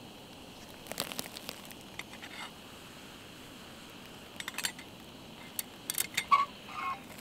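Primus Essential Trail gas canister stove burning with a steady hiss under a stainless steel pot, while the pot's metal lid is lifted and set back on with several sharp clinks and a short ring, mostly in the second half.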